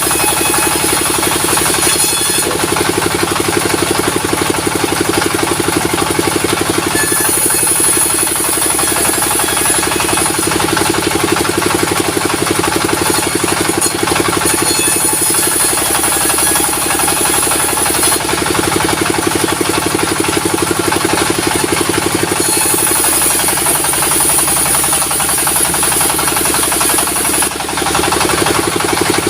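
Diesel-driven sawmill running steadily, with a saw cutting through a log. A high-pitched hiss from the cut comes and goes in stretches of a few seconds.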